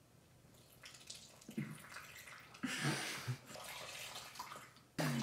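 Milk being poured from a glass measuring cup into a bowl of dry pancake mix: a splashing trickle that builds to its strongest around the middle and stops near the end.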